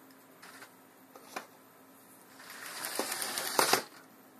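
LEGO 9V train running on 9V track. The wheels click over the rail joints, and a clattering swell builds for about a second and a half with a few sharp clicks before it fades.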